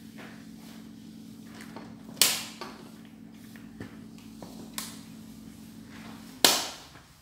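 Two loud knocks about four seconds apart, each with a short ringing tail, with a few lighter clicks between them. Under them runs a steady low hum that cuts off with the second knock.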